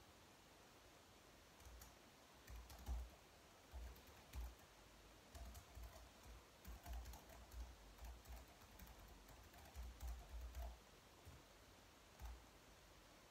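Typing on a slim white low-profile keyboard: quiet, irregular key clicks in short runs, starting a couple of seconds in and stopping shortly before the end.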